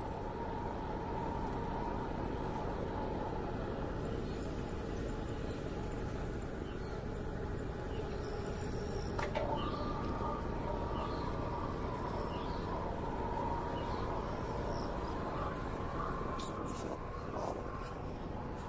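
Steady wind rush on the microphone and tyre noise from a bicycle riding along an asphalt path, with insects trilling faintly and high. A few sharp clicks near the end.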